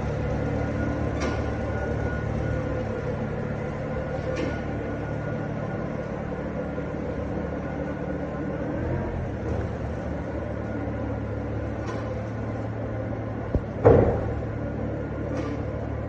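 Feed wagon running steadily, a machine hum with several held tones, as it moves down the feed passage putting out the cows' mixed ration. A single sharp knock sounds near the end.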